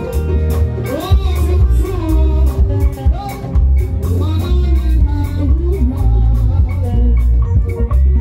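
A woman singing a Ghanaian gospel song live into a microphone over an amplified backing band with heavy bass and drums.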